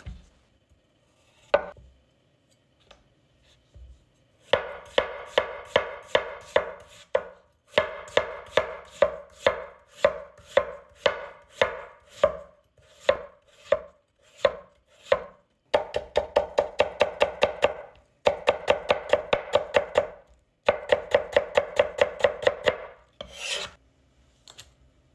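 Chinese cleaver slicing and shredding a peeled raw potato on a wooden cutting board, each stroke a sharp knock on the board. The strokes come at about three a second at first, then in quicker runs of about six a second.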